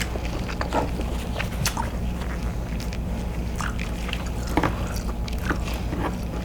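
Close-miked eating sounds: wet chewing and lip smacks on buttery crab meat, with scattered short clicks, over a steady low hum.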